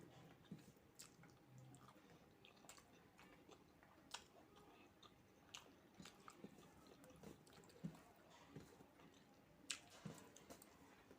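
Faint, close-miked chewing of fried rice and chicken curry: irregular wet mouth smacks and small clicks, a little louder about four seconds in and near the end.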